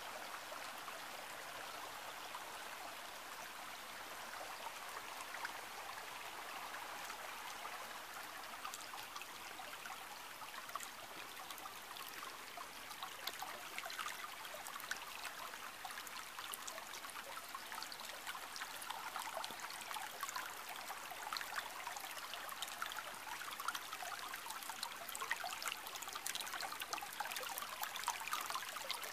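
Small stream babbling and trickling over stones, a steady wash of water with many small splashes and drips that grow busier and a little louder in the second half.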